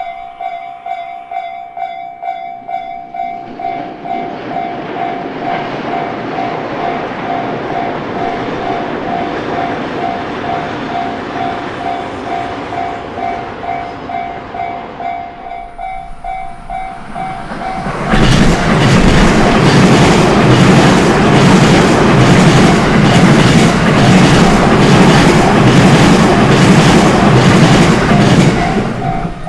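Japanese railway level-crossing alarm bell dinging rapidly and steadily while train noise swells and fades. About 18 seconds in, a train passes close and much louder for about ten seconds, its wheels clattering rhythmically over the rail joints and drowning out the bell.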